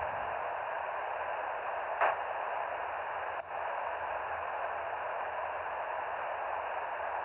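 Kenwood TH-D74 handheld transceiver's speaker hissing steadily with SSB receiver noise. A single sharp bang comes about two seconds in, and the hiss drops out very briefly a second or so later. The owner is unsure whether this banging is normal.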